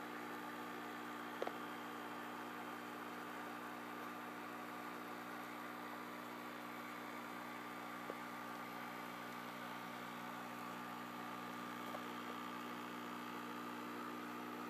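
Steady electrical hum over a faint hiss, with two small clicks.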